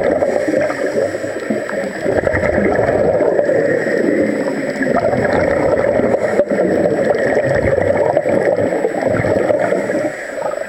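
Underwater bubbling and gurgling from scuba divers' regulators: exhaled air bubbling out in a steady wash.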